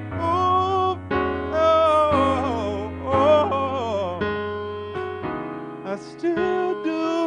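A man singing a soul ballad over electric-piano chords played on an M-Audio stage keyboard. His voice bends and slides through a long falling run in the middle.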